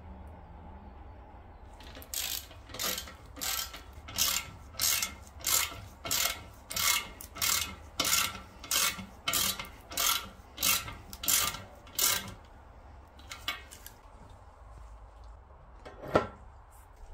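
Ratchet wrench tightening a nylon-insert lock nut onto a bench bolt: about sixteen regular rasping strokes, roughly one and a half a second, that stop about twelve seconds in. A single sharp click comes near the end.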